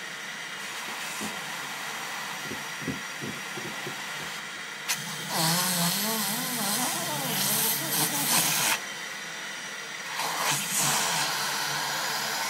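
Vacuum cleaner running with a steady airy hiss, its hose nozzle held to a baby's mouth. A louder rush of air with a wavering tone lasts about three seconds around the middle, with another brief surge near the end.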